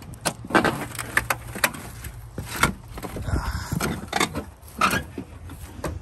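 Footsteps picking through rubble and dry grass, with a string of about ten irregular sharp knocks and rattles from loose scrap metal and debris underfoot.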